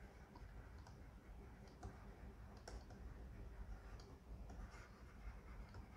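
Faint, scattered clicks of a batteryless plastic stylus nib tapping and writing on the surface of an XP-Pen Deco Mini 7 graphics tablet, about one every second over a quiet background.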